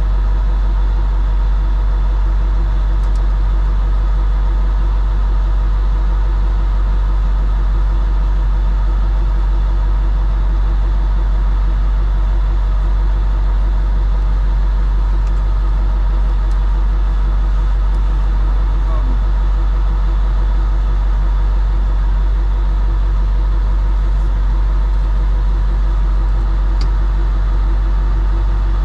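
Farm tractor's diesel engine idling steadily, with a deep low drone. A few faint ticks from wires being handled.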